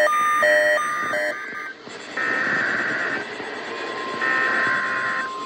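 NOAA Weather Radio EAS test: SAME header data bursts, short buzzy digital tone bursts of about a second each, repeated with short gaps. Near the end the steady 1050 Hz weather radio warning alert tone begins.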